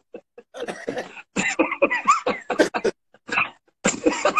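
Men laughing hard over a video call: breathy, broken bursts of laughter with short gasps between them.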